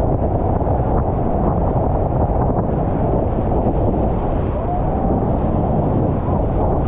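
Steady, loud rush of wind buffeting the microphone, mixed with the roar of Horseshoe Falls' falling water.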